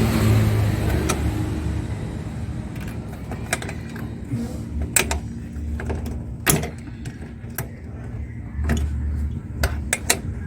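Mechanical work sounds: scattered sharp metallic clicks and knocks, a dozen or so, over a low steady hum that fades over the first few seconds.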